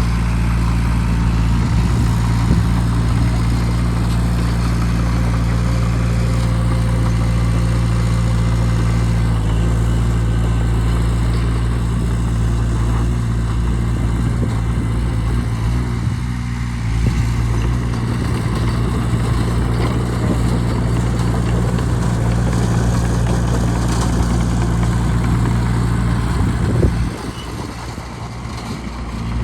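Bulldozer's diesel engine running steadily at working speed. Its level drops for about two seconds near the end, then comes back.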